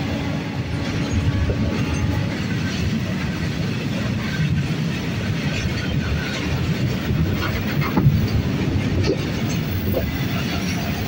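Freight wagons of a passing train running by on the rails: a steady rumble of steel wheels with irregular clacks, one louder clack about eight seconds in.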